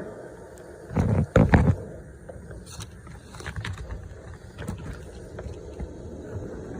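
Two loud, deep thumps close together about a second in, over a steady low rumble, followed by scattered lighter knocks and scrapes, as from dryer vent cleaning work.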